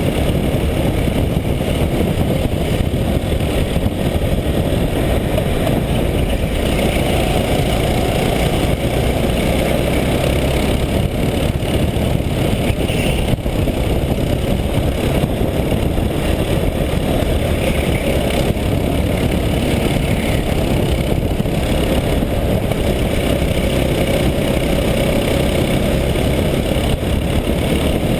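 Go-kart engine running at racing speed, heard from an onboard camera on the kart: a loud, steady engine and road noise with no let-up.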